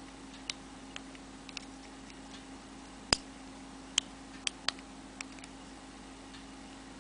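Irregular small plastic clicks and taps from working rubber loom bands on a Rainbow Loom Monster Tail, as bands are stretched and lifted over its pins. There are about eight clicks, the loudest about three seconds in, over a low steady hum.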